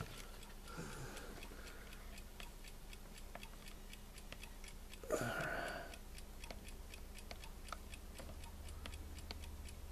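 Faint, fairly regular clicking of a 1970s–80s digital alarm clock's spring-loaded rocker switches being held and pressed to set the alarm time. A brief voice sound comes about halfway through.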